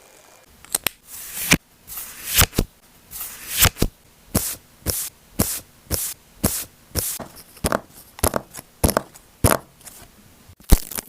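Paper being handled and cut for a journal spread: a steady series of short, crisp paper strokes, about two a second, each swelling briefly and stopping sharply.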